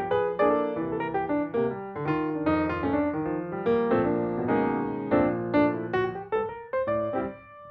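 Background piano music, notes played in a steady flowing pattern, with a brief pause near the end.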